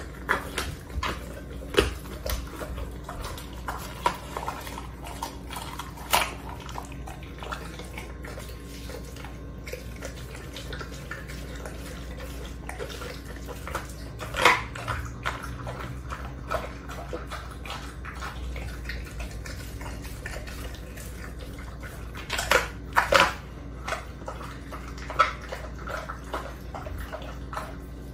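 Pit bull-type dog eating raw meat: wet chewing and tearing with irregular crunches and snaps, the loudest about halfway through.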